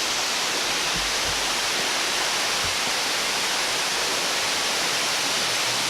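Waterfall rushing: a close, steady roar of falling water with no let-up.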